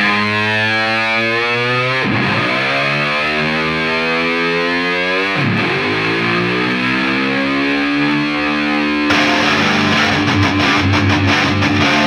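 Rock music: distorted electric guitar chords held and ringing, with the pitch swooping down and back twice, about two and five seconds in. About nine seconds in, a faster, heavier riff with drums comes in.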